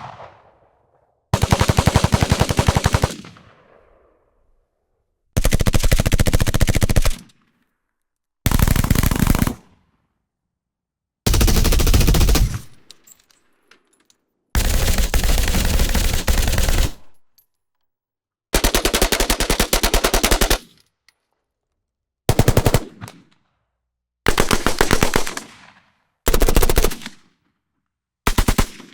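Automatic rifle firing in about ten bursts of rapid shots, each from half a second to a couple of seconds long, separated by brief pauses, each burst trailing off with a short echo.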